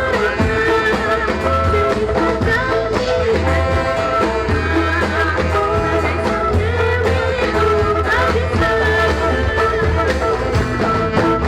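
A live ensemble plays a zapin song, with a melody line that glides and holds notes over a steady, pulsing bass.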